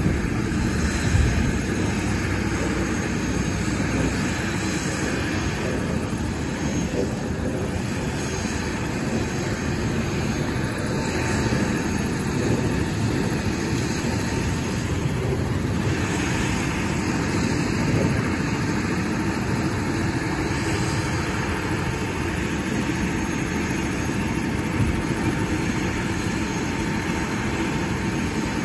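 Airbus H130 (EC130) single-engine turbine helicopter running on the ground before lift-off: a steady turbine whine with rotor and engine noise.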